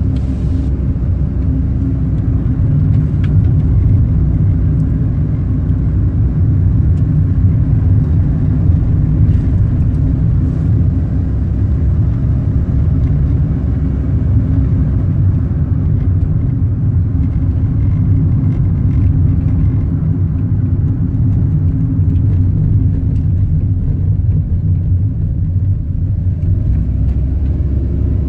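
Car driving along a road: a steady, low-pitched run of engine and tyre noise with no clear changes.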